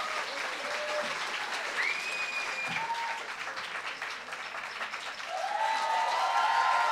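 Audience applauding, with a few whoops and cheering voices that grow louder near the end.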